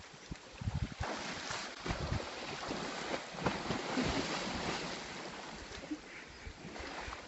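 An elephant splashing about in river water: repeated splashes and sloshing with low thumps, dying down over the last couple of seconds, with wind buffeting the microphone.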